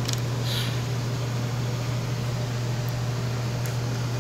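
A steady low hum with an even hiss above it: constant background room noise. A few faint light clicks sound near the start and again around three to four seconds in.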